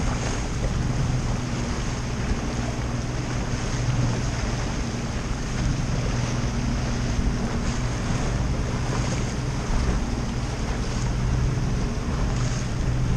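Outboard motor running steadily at trolling speed, a low even hum, under the wash of water along the hull and wind on the microphone.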